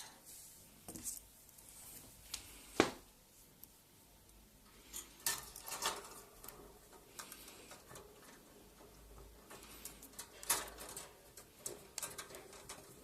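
Scattered light clicks and taps from a budgerigar moving around its wire cage, with a sharper knock about three seconds in.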